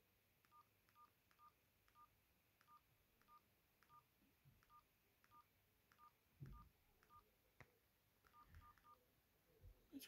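Faint key beeps from a BenQ-Siemens EF61 flip phone's keypad as its navigation key is pressed to scroll through a menu: about seventeen short two-tone beeps, unevenly spaced, several in quick succession near the end. A soft low thump about six and a half seconds in.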